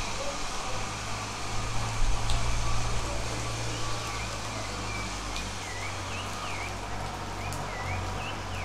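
Steady rain hiss with a low, even rumble underneath. From about halfway in, a bird gives repeated short chirps that dip and rise in pitch.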